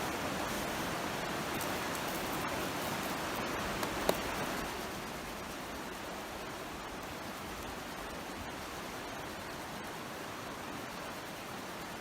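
Steady rushing of a creek, with a single sharp click about four seconds in; the rushing gets slightly quieter about five seconds in.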